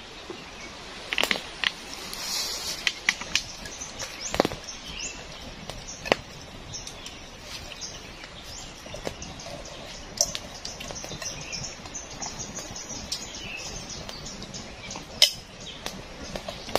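Wood campfire crackling, with sharp, irregular pops and snaps as the damp, smoky wood burns.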